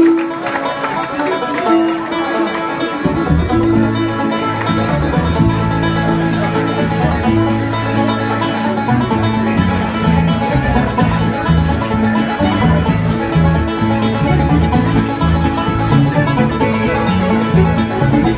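Live bluegrass band playing: banjo, fiddle, acoustic guitar and mandolin together, with a low bass line coming in about three seconds in.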